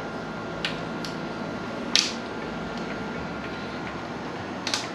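A few sharp metallic clicks from hand tools and parts being handled on a Honda B18B1 cylinder head, the loudest about two seconds in, over a steady background hum.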